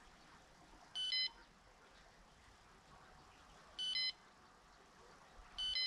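Three short electronic beeps from a fishing bite alarm, irregularly spaced about three and then two seconds apart. Each beep is a bright two-step tone.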